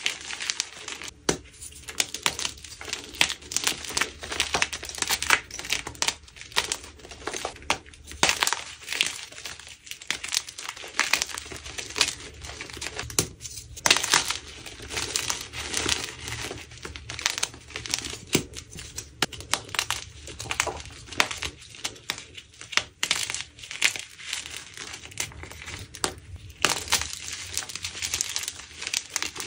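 Red-dyed magnesium carbonate gym chalk blocks being crushed and crumbled: a dense run of crunches and powdery crackles with a few brief pauses.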